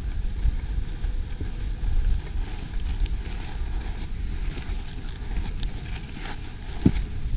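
Skis sliding and scraping over snow while skiing downhill, with wind rumbling on the action-camera microphone. There is one brief thump near the end.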